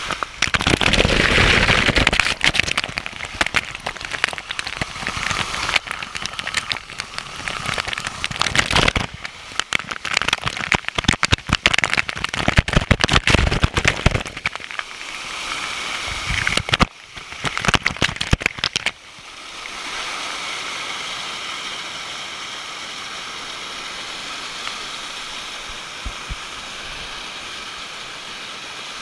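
Waterfall water splashing close to the microphone, loud and irregular with sharp crackles, then settling about two-thirds of the way through into a steady rush of falling water.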